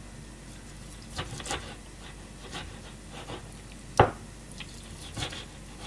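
Kitchen knife cutting raw chicken thigh into small pieces on a cutting board: scattered soft knocks of the blade on the board, with one sharp knock about four seconds in.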